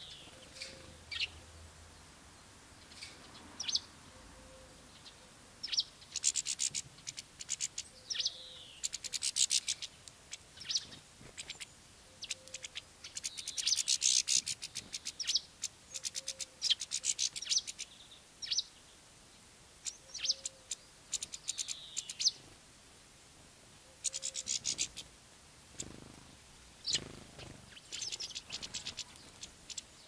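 Small songbirds chirping and twittering in quick, high-pitched bursts, busiest in the middle, with short quiet gaps between.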